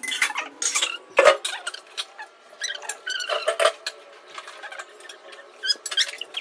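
Steel pots and a wooden rolling pin clattering and knocking against the stone counter and marble rolling board, with a sharp knock about a second in. Short high squeaky chirps come in among the knocks.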